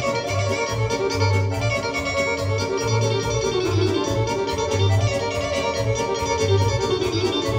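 Live dance music played on a Korg synthesizer keyboard through PA speakers: an organ-like melody over a steady bass beat of about two pulses a second.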